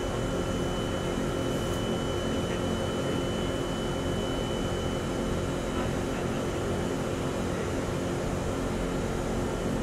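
Steady hum inside a stationary MRT train car with its doors open at a platform: air conditioning and onboard equipment running, with a thin high tone over the noise.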